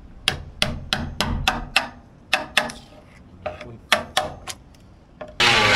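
Claw hammer striking a chisel to chip corroded coating off an aluminum hull: a rapid, irregular run of sharp taps, about three a second. Loud music cuts in suddenly near the end.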